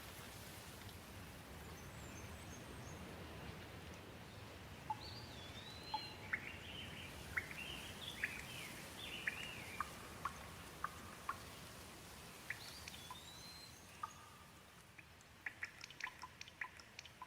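Gentle rain falling steadily, with a bird calling in a run of short chirps and whistles from about five to ten seconds in and briefly again a little later. Near the end, single drops fall in quick, sharp drips.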